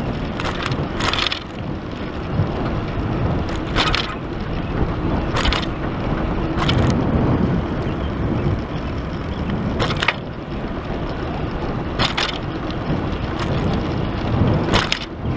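A bicycle riding along a paved path: a steady rush of wind and tyre noise, with about eight sharp clicks and knocks at irregular intervals from the bike and its front carrier jolting over bumps.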